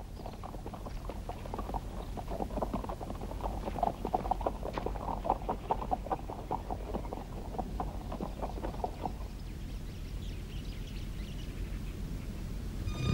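Hoofbeats of a caravan's pack animals walking: a dense patter of many hooves that thins out about nine seconds in.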